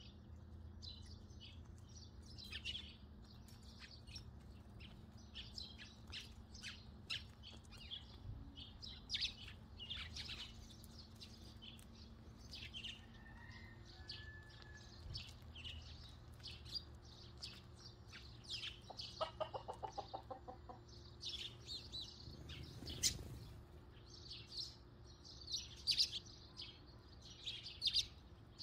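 Eurasian tree sparrows chirping continuously, a flock giving many short, high chirps. About two-thirds of the way through, a chicken gives a brief run of low clucks.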